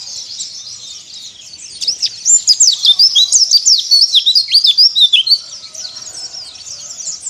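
White-eye (pleci) song: a fast, high twittering of quick rising and falling notes, which grows loud and dense about two seconds in and drops back to softer chattering after about five seconds.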